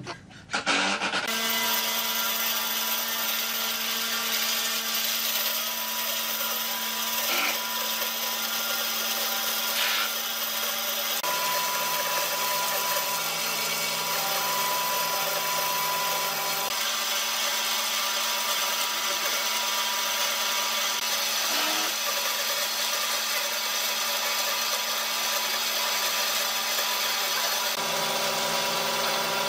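An electric woodworking power tool starts up about a second in and runs steadily, with a few faint knocks along the way.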